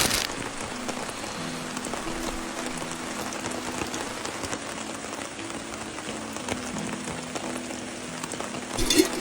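Steady rain falling, an even hiss throughout, with faint background music of held notes under it.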